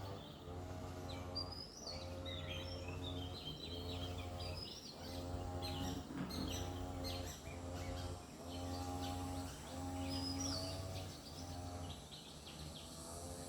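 Several wild birds chirping and whistling in short calls, over a low steady-pitched hum that pulses on and off about once a second.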